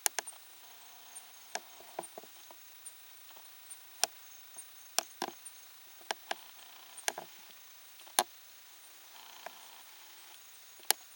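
Irregular sharp clicks and snaps, about a dozen scattered through, over a faint, steady, high-pitched chorus of night insects.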